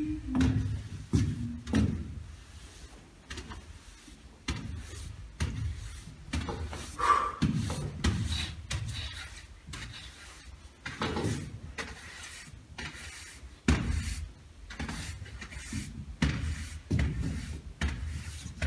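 Irregular footsteps and knocks on a wooden stage floor, with a push broom brushing and bumping the boards.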